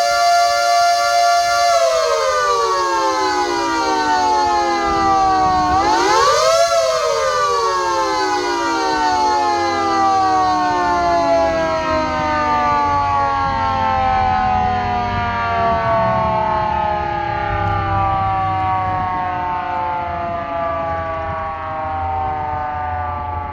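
Mini siren holding a steady tone, then winding down. About six seconds in it is powered up again, its pitch rising, before it coasts down in a long, slow falling wail.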